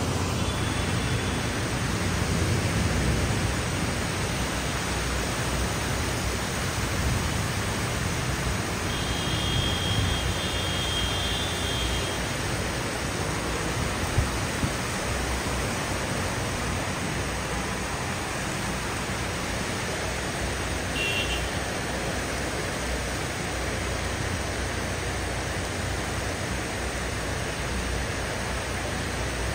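Heavy tropical rain pouring down steadily, a continuous even hiss of rainfall. Faint brief high tones sound a few times, the longest about nine seconds in.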